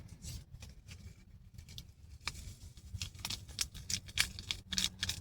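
Campfire crackling with irregular small pops and clicks, faint and uneven.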